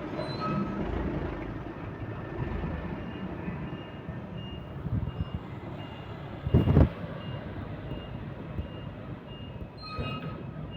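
Reversing alarm on a heavy vehicle beeping about twice a second over the rumble of its running engine, the beeps starting about three seconds in. A single loud thump comes a little past the middle.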